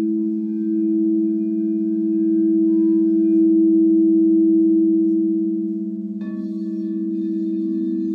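Crystal singing bowls ringing together in two low, steady tones that swell and pulse slowly. About six seconds in another bowl is struck, adding higher ringing tones over the drone.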